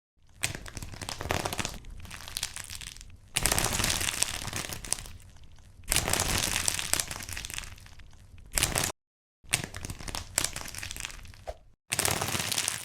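Crackly squishing and crunching of soft material being squeezed and pressed, in a string of short clips a second or two long that change abruptly, with one brief dead gap between them.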